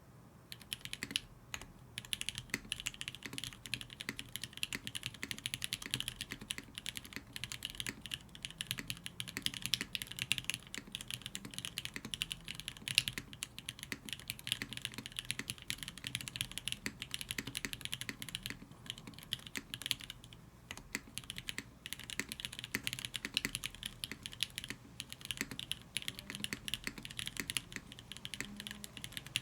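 Rapid, continuous typing on a custom Tsukuyomi mechanical keyboard: top-mount, full aluminium plate, no dampening, lubed SP Star Nana switches and Wannabe GMK Ashes keycaps. The clicking starts about a second in and keeps a steady fast pace, with a brief lull about two-thirds of the way through.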